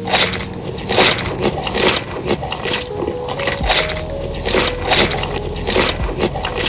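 Close-up eating sounds: wet chewing and biting in quick repeated strokes, a few each second.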